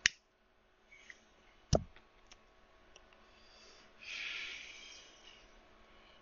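Computer mouse clicks: a sharp click at the start and a louder one nearly two seconds in, with a few faint ticks after. A breath out follows about four seconds in.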